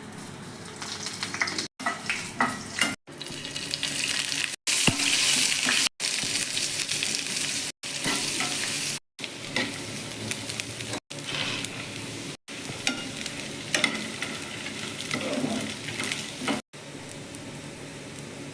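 Food frying and sizzling in oil in a pan while it is stirred, with scattered scraping clicks, in short pieces separated by abrupt gaps of silence.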